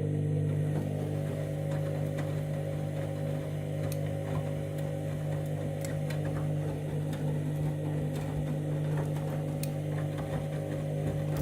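Candy washing machine's drum motor running steadily during a synthetics main wash: an even, pitched hum with scattered light clicks.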